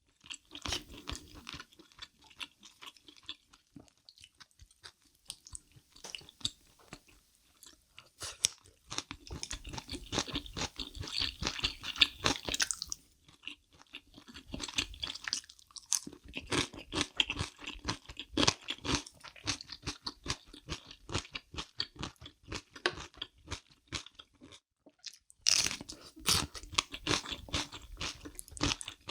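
Close-miked eating: crisp kimchi crunched and chewed in several bouts, with short pauses between mouthfuls.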